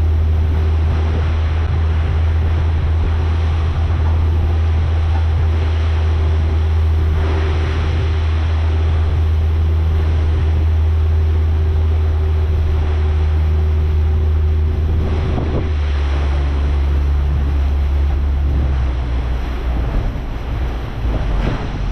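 Small boat's outboard motor running steadily under way, with wind noise on the microphone and water rushing past the hull. About fifteen seconds in, the engine note drops and turns rougher as the boat slows.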